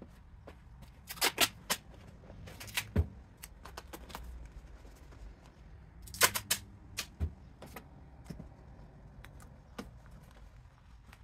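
Pieces of cardboard and a roll of duct tape being handled and set down on a workbench: scattered clicks, taps and knocks, with louder clusters about a second in and about six seconds in.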